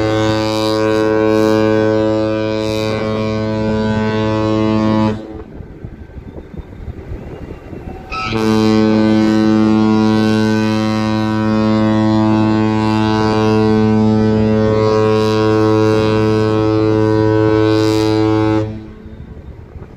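A cruise ship's horn sounding two long, steady blasts, a deep chord with many overtones. The first lasts about five seconds and the second, starting about three seconds later, about ten seconds. The blasts signal the ship's departure from port, and a rushing noise fills the gap between them.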